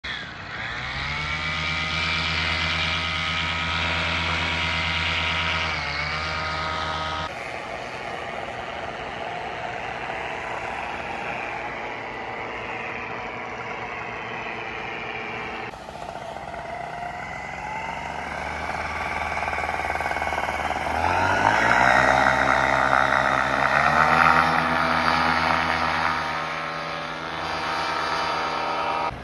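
Paramotor engines and propellers running for take-off. One throttles up at the start and holds at high power, then after cuts another rises sharply from a lower setting about two-thirds of the way through into the loudest stretch.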